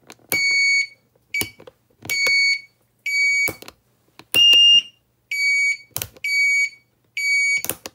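Turn-signal beeper of a 125 cc ATV's added indicator system, sounding in time with the flasher: a high beep about once a second, with a click at each. One beep near the middle is higher-pitched and louder than the rest.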